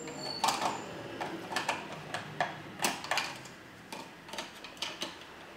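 Irregular light clicks and knocks of hard plastic Play-Doh toy pieces and tubs being handled, about three a second.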